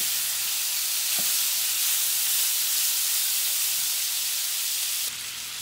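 Seasoned pork pieces sizzling in hot oil in a cast iron skillet as they brown, a steady hiss as they are stirred with a wooden spoon, with one light knock about a second in. The sizzle drops a little quieter about five seconds in.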